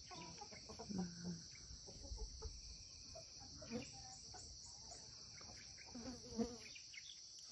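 Steady high-pitched chorus of insects, with a few faint, brief vocal sounds about a second in and again near the end.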